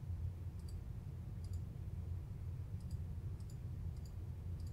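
Computer mouse clicking: about six sharp, light clicks at uneven intervals, each a quick press-and-release double tick, over a faint steady low hum.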